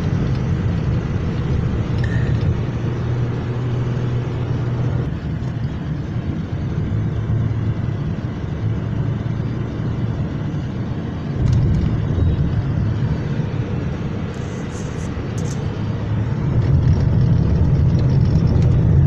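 Steady low rumble of a car driving in strong gusty wind, heard from inside the cabin. It swells louder a little past halfway and again near the end.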